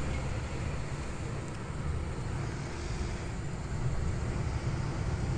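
Strong storm wind blowing outside, a steady rushing noise with a heavy low rumble, heard through a closed window.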